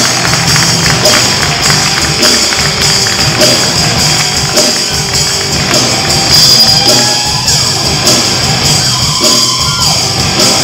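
Live rock band playing loud: electric guitars over drums keeping a steady beat.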